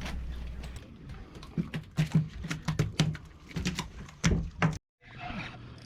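Irregular knocks, taps and thumps, the handling of a freshly caught fluke and gear on a fishing boat, cutting off abruptly near the end, after which a steady hiss of wind and water comes in.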